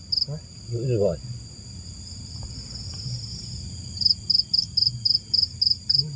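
A cricket chirping in an even run of about three or four high chirps a second. It pauses near the start and starts again about four seconds in, over a steady high drone of night insects. A brief murmur of a man's voice comes about a second in.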